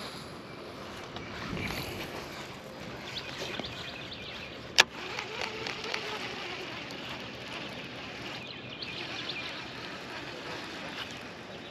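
Steady outdoor background noise with faint scattered ticks, broken by one sharp click about five seconds in.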